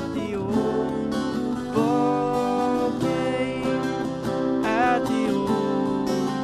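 Acoustic guitar strummed in steady chords, with a man singing short phrases over it.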